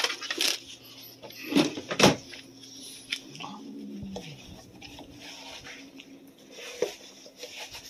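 Clatter from a wire pet cage being handled: a few sharp knocks in the first two seconds, then quieter rattling and rubbing.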